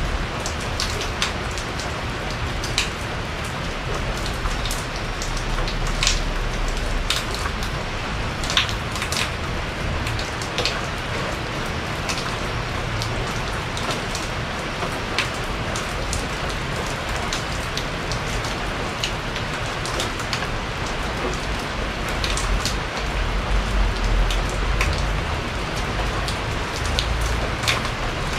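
Steady rain falling on a porch, with many sharp close drops striking the surface at irregular moments over a low rumble.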